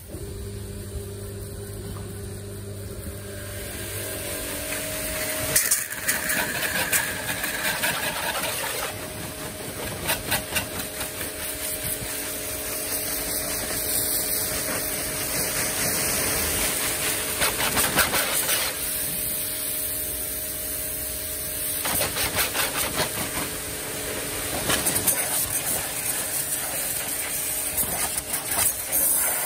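Yamasu mini pressure washer's motor and pump switching on and running with a steady hum, under a loud hiss of water spray that pulses rapidly in stretches.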